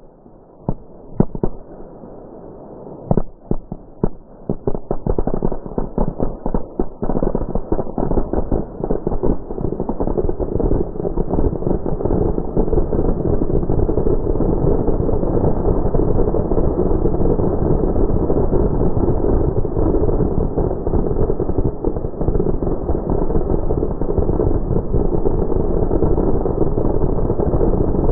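An M4000 brick of 4,000 small firecrackers going off inside its container. A few scattered bangs at first thicken after about five seconds into a dense, continuous rapid-fire crackle of reports.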